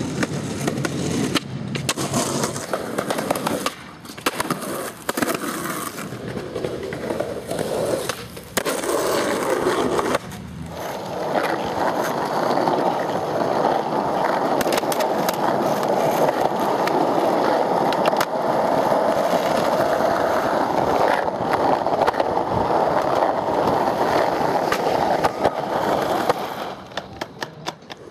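Skateboard wheels rolling over asphalt and concrete, a steady rough rumble, broken by sharp clacks of the board hitting the ground, with several clacks close together near the end.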